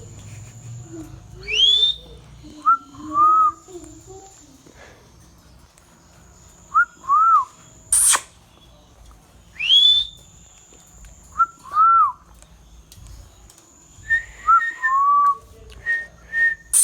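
Ringneck parrot whistling in short loud notes: quick rising whistles and pairs of arched notes, with a sharp shriek about eight seconds in and another run of short calls near the end.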